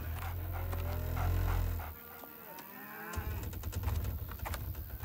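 Cows mooing: two long, deep moos, the second beginning about three seconds in, with scattered light clicks and knocks around them.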